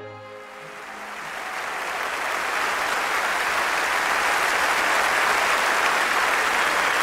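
Brass-led orchestral music fades out in the first second, then applause swells up over the next two seconds and carries on steadily.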